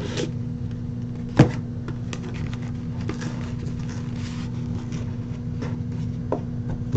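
Steady low electrical hum with faint handling noise of trading cards and packaging, and one sharp tap or click about a second and a half in.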